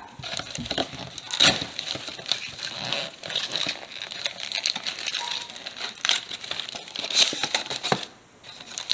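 Plastic wrapping crinkling and cardboard packaging rustling as the contents of a Pokémon Mystery Power Box are pulled out by hand, in irregular bursts with louder crackles about one and a half seconds in and again near the end.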